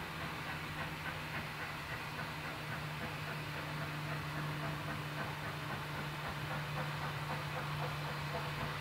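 L&Y Class 23 0-6-0 saddle tank steam locomotive approaching while still out of sight, its faint exhaust beats slowly growing louder over a steady low hum.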